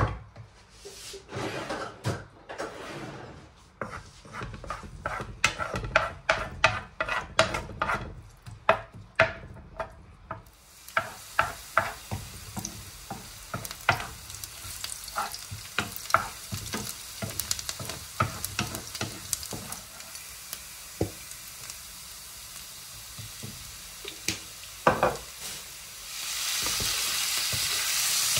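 Chicken pieces frying with onions in hot oil in a pan: a spatula clicks and scrapes against the pan as they are stirred. About ten seconds in, a steady sizzle takes over, and it gets louder near the end.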